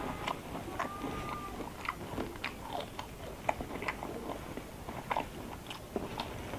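Close-up eating sounds of a person eating rice, curry and boiled quail eggs by hand: irregular chewing and lip smacks with many small clicks.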